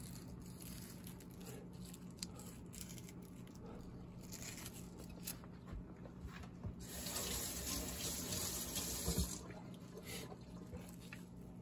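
Water running from a kitchen tap into the sink for about two and a half seconds, starting about seven seconds in and shutting off, with scattered light clicks and knocks before and after.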